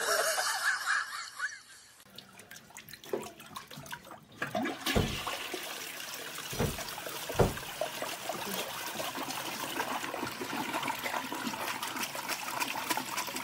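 Toilet flushing: water rushing and swirling in the bowl while a cat paws at it, with a few dull thumps early in the rush.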